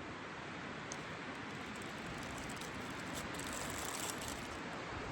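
Wind blowing in a steady rush that swells a little, with some crackly rustling about three seconds in.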